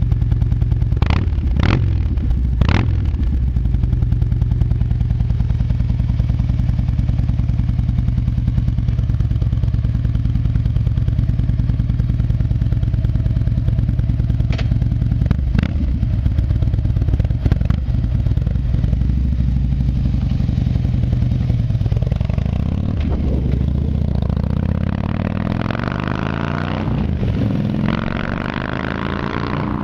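2008 Harley-Davidson Ultra Classic Electric Glide's Twin Cam 96 V-twin running steadily at idle through Crusher mufflers, with a few brief knocks in the first half. About two-thirds of the way through the bike pulls away, the engine pitch rising and falling several times as it shifts up, growing fainter near the end.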